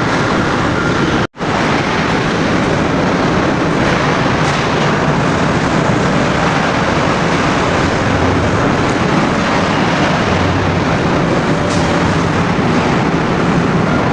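Car engine bay running with a loud, steady mechanical noise, in a car whose air-conditioning compressor has failed and seized. The sound drops out for an instant about a second in.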